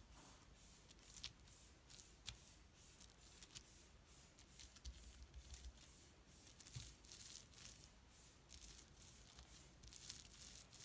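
Faint, irregular crackling and ticking of fingers pressing and rubbing paint-covered plastic bubble wrap, with a few sharper clicks.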